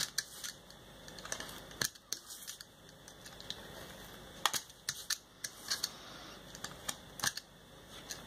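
Snap-off craft knife blade cutting paper along fine contours, making irregular small clicks and scratches as the tip pierces and drags through the sheet.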